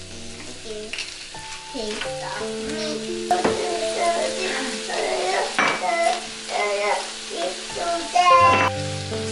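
Shrimp and chopped onion sizzling as they fry in a frying pan, under background music with held notes and a melody.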